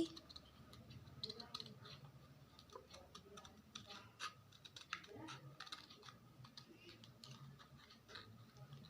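Scissors cutting through hard cardboard: faint, irregular small snips and clicks.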